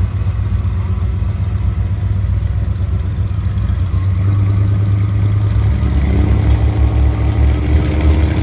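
Vehicle engine running steadily, picking up revs and getting louder from about four seconds in, as a pickup stuck deep in mud is pulled on a tow strap.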